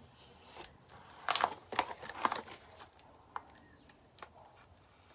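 Packaging being cut open with a small hobby knife: irregular scraping and crinkling, loudest in a run of bursts between about one and two and a half seconds in, with a few small clicks afterwards.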